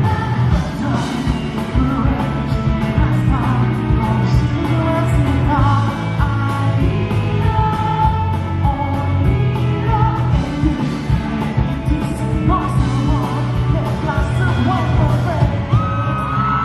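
A pop-rock band playing a song: a male lead voice sings over a steady drum beat and the band.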